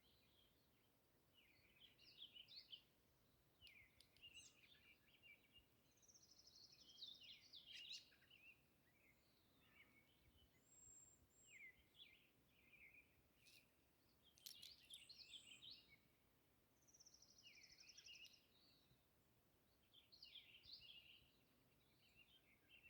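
Faint songbird song: short phrases of quick high chirps and trills, repeated every few seconds over a quiet steady background hiss.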